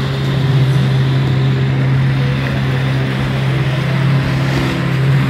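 Jet ski engine running at a steady high speed under way, with a loud rush of water spray and wind.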